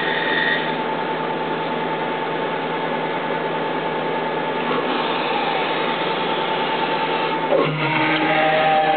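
Haas TM-1 CNC mill's spindle running as an end mill faces off the tops of Delrin rods in the vise, a steady machining noise with a thin whine, with some vibration from the Delrin sticking up out of the vise and a cutter that might be getting a little dull. About seven and a half seconds in, the steady whine gives way to several shifting tones as the tool lifts clear of the work.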